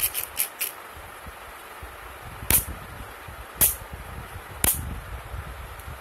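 Black plastic fidget pad being clicked: a quick run of small clicks at the start, then three sharp single clicks about a second apart, with the low rustle of fingers handling the toy.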